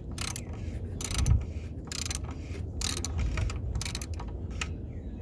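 Hand ratchet clicking in short, irregular strokes as a socket on an extension turns the oil filter housing cap on top of a 3.6 Pentastar engine back down.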